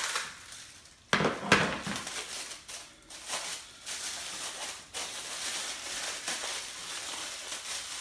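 Clear plastic packaging bag crinkling and rustling as a vacuum attachment is unwrapped by hand, with a sharp clatter of a part being set down about a second in.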